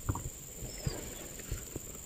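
Footsteps of people walking on a dirt track, uneven thuds a few times a second.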